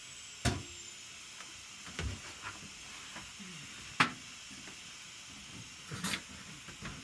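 A steady hiss under a few scattered knocks and clicks of things being handled and set down; the sharpest click comes about four seconds in.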